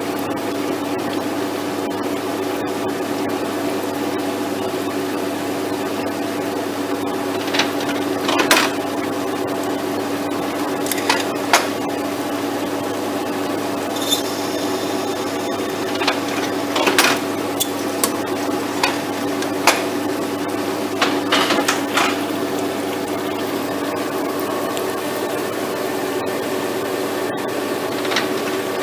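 Index B30 automatic screw machine running through its cutting cycle on brass stock, a steady mechanical hum under a flood of cutting oil. Short sharp clacks and clatters come now and then, mostly in the middle stretch, with a brief high ring about halfway through.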